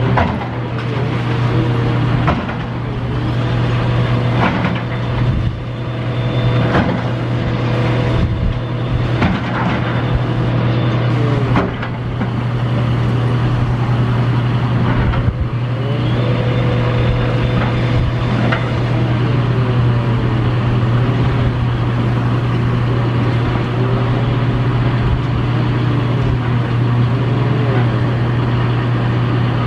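Heavy demolition machinery's engine running steadily, with a series of sharp knocks and crashes in the first twelve seconds or so and a wavering whine from the machine.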